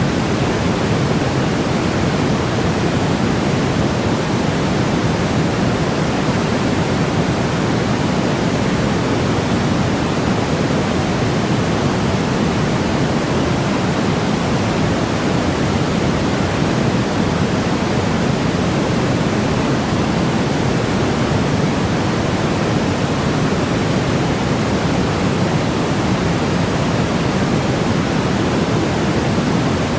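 Steady, continuous noise, heavier in the low-mid range than in the treble, like pink noise: a synthetic calming noise track with no changes or events.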